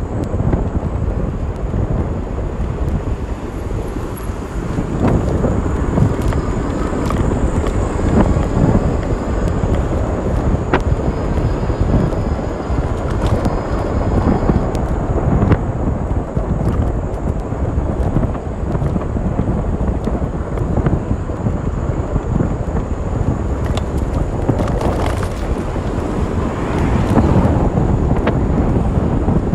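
Wind buffeting the microphone and the rumble of tyres on a paved path while riding, with a handlebar-mounted camera picking up a few sharp clicks and rattles.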